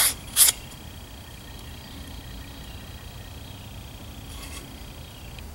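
Two quick brushing swipes of a hand across a wooden board, clearing dust off a filled patch, about half a second apart; then only a faint steady hum.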